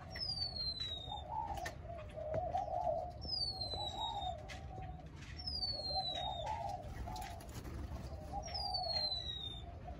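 Several doves cooing in an aviary, their soft phrases following and overlapping one another without pause. Another bird gives a high whistle that falls in pitch four times.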